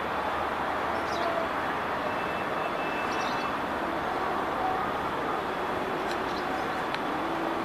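Formation of Airbus EC120 Colibri light helicopters flying past at a distance: a steady rushing hum of rotors and turbine engines, with no distinct blade beat.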